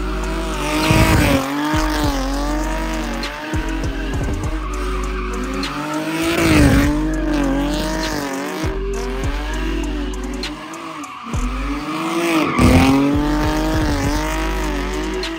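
Rear-wheel-drive sedan drifting in tight circles, its engine revving up and down while the rear tyres squeal and scrub. It comes round close and loud about every six seconds, three times.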